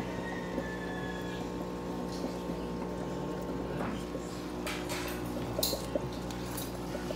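Steady electrical hum with several overtones from a lit Firefly fluorescent tube light. Scattered clicks and rustles of handling come through, mostly in the second half.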